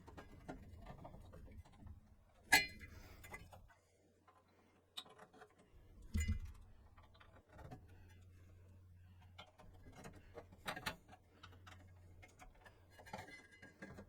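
Scattered light clicks and knocks of computer parts being handled and refitted during reassembly, the sharpest about two and a half seconds in, with the sound dropping out briefly around four seconds in.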